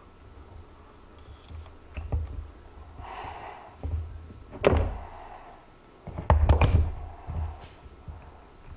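Plastisol hand injector knocking against an aluminum soft-plastic lure mold as hot plastic is pushed in: scattered dull thunks, the loudest about halfway through, and a quick run of several knocks about two-thirds of the way in.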